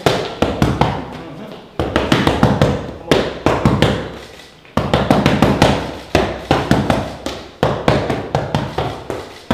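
Punches smacking into padded boxing focus mitts in quick combinations, a sharp slap with each hit, in runs broken by brief pauses.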